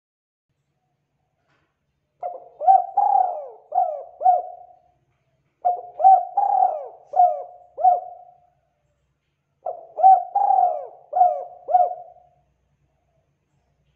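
Spotted dove cooing: three phrases a couple of seconds apart, each a run of about five low, hooting coos, the first starting about two seconds in.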